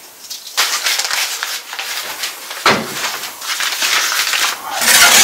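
Crackling and hissing in the kitchen, with a knock about two and a half seconds in. Eggshells are being peeled first, then sucuk slices sizzle in a pan inside a wood-burning stove's oven, louder near the end.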